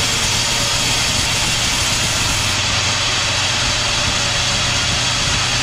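Sawmill machinery running steadily, a constant low engine hum under a loud, even hiss.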